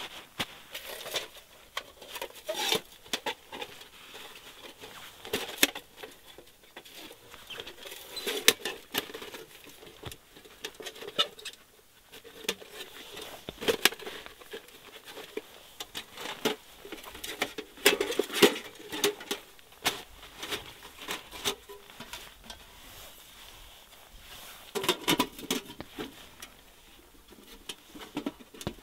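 Thin titanium panels of a Pomoly T1 Mini folding wood stove clicking and clinking in irregular clusters as the stove is unfolded and slotted together by hand, with brief quiet pauses between handlings.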